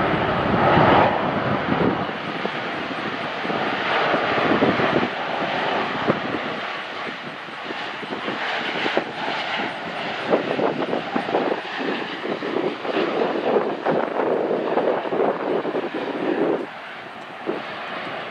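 Jet engine noise from an American Airlines Boeing 787 passing on final approach with its landing gear down. The sound swells and fades unevenly, then drops off sharply near the end.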